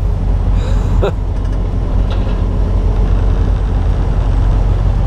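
Steady low engine and road rumble of a semi truck heard from inside its cab while it drives in slow traffic. A short voice-like sound is heard about a second in.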